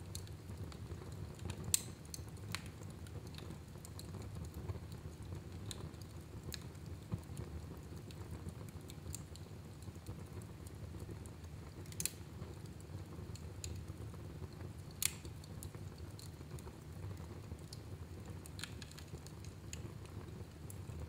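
Fire burning in a fireplace: a steady low rumble with scattered sharp crackles and pops, the loudest about 2, 12 and 15 seconds in.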